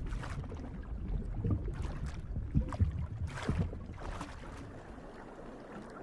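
Water sloshing and splashing over a low rumble, with a few brief splashes in the first half that fade away towards the end.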